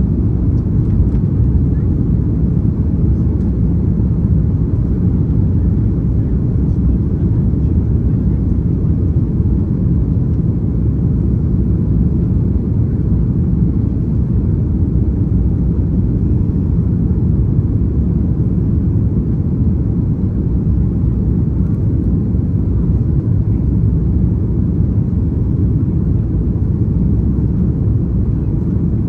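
Steady low rumble of an Airbus A330 airliner, even throughout with no rise or fall.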